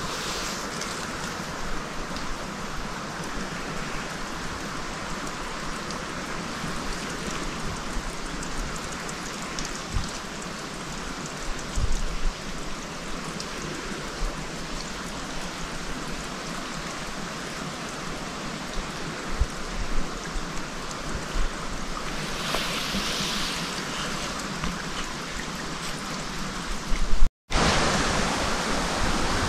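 Steady rushing of running water, with a few soft low thumps. It cuts out for a moment near the end and comes back louder.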